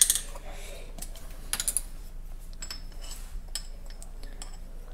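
A metal measuring spoon clicks and clinks against spice jars and a glass mixing bowl as ground spices are measured out. The sound is a string of light taps with a quick cluster about a second and a half in, and a few ringing clinks later on.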